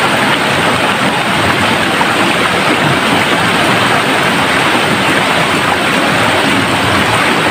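Shallow rocky stream rushing over boulders: a steady, even rush of running water.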